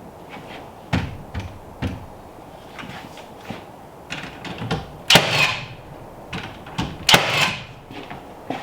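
Carpentry work on wood: a series of sharp knocks and taps, with two louder, longer noisy sounds about five and seven seconds in.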